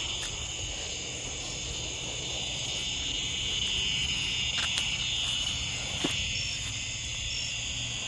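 Dusk chorus of crickets and other insects, a steady high-pitched drone. A couple of short, faint clicks come past the middle.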